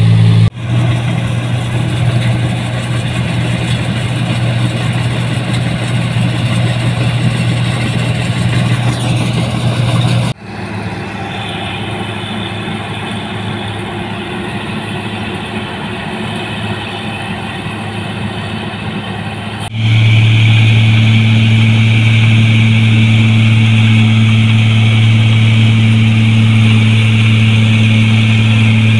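New Holland rice combine harvesters running while harvesting: a steady diesel engine hum with the threshing machinery. The sound changes abruptly about half a second, ten and twenty seconds in. The last and loudest part is a New Holland 1545 close up, with a steady high whirr from the machinery over the engine.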